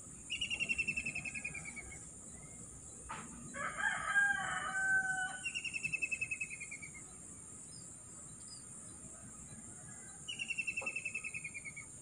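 A rooster crows once about four seconds in. A bird gives three rapid trills that fall slightly in pitch, each about a second and a half long, over a steady high buzz of insects.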